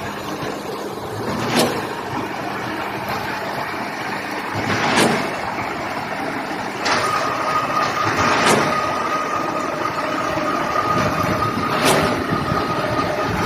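Truck-mounted concrete pump running steadily, with a sharp knock about every three and a half seconds as the pumping cylinders change stroke. A steady high whine joins about seven seconds in.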